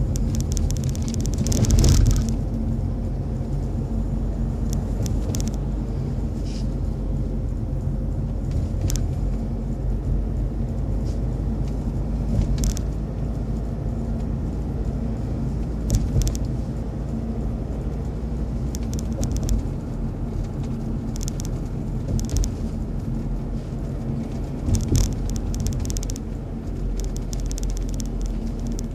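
Car driving, heard from inside the cabin: a steady low engine and road hum, with scattered short clicks and knocks at irregular moments, the loudest about two seconds in.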